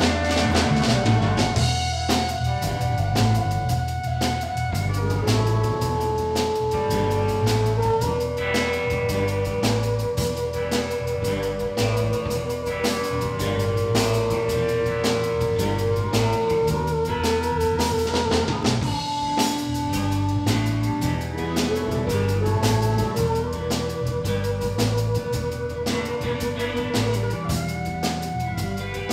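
Live blues band playing: a harmonica solo of long held, wavering notes that bend in pitch, over a steady drum-kit beat, bass and electric guitar.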